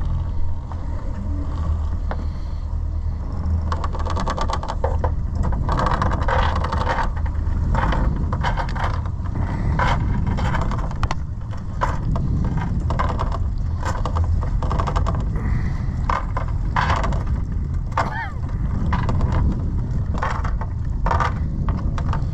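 Anchor chain scraping and clattering in irregular strokes as it is hauled up by hand over the boat's bow, over a steady low rumble. The strokes start about three seconds in.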